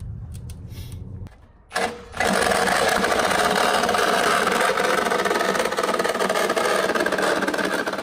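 A Sawzall reciprocating saw cutting into the steel shell of a water heater. After a short burst just under two seconds in, it runs loud and steady.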